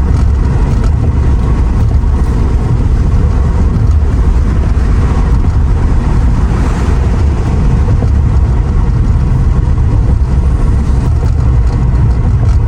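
Steady road and wind noise heard from inside a moving Mercedes R129 SL500, with a heavy low rumble throughout and a brief swell about halfway through.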